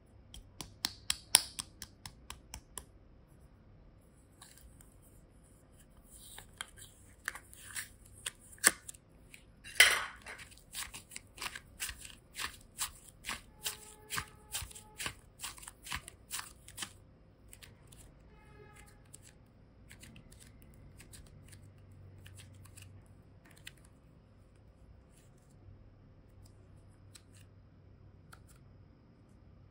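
Hands handling and opening a plastic diamond-shaped toy capsule with a paper cone cover: a run of sharp clicks and crackles, densest from about 6 to 17 seconds in, with one loud snap about 10 seconds in, then only faint rustling.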